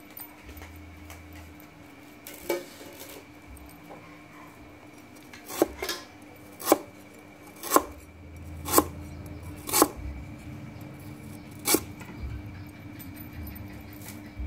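Cleaver chopping a piece of ginger into slices on a wooden chopping board: a series of sharp knocks, roughly one a second, through the middle of the stretch.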